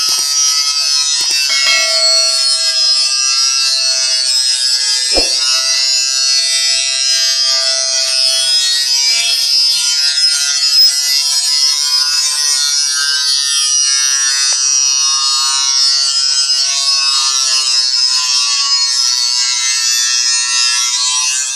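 Handheld electric angle grinder running steadily against the steel blades of a chaff cutter, a continuous high grinding hiss over the motor's steady whine, as the blades are sharpened.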